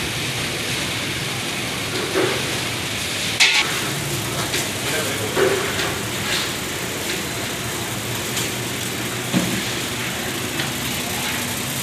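Steady background hiss with a faint low hum, broken by a few short clicks and knocks and brief faint voices.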